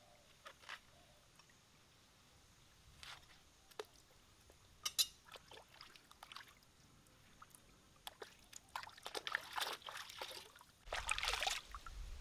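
Water splashing and dripping as pieces of peeled banana stem are rinsed and lifted out by hand. The splashes come in scattered short bursts at first and grow busier in the last few seconds.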